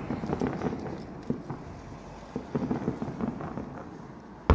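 Fireworks display: clusters of crackling shell bursts, then a sudden loud bang right at the end.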